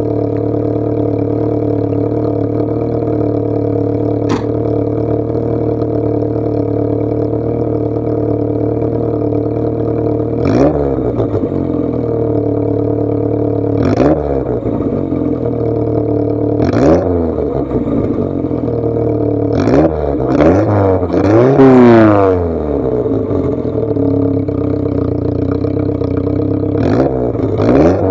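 Volkswagen Jetta A2's carbureted four-cylinder engine through its stock exhaust, idling steadily for about ten seconds. It is then blipped several times, each rev rising and falling back to idle, with a longer, louder rev about three-quarters of the way through.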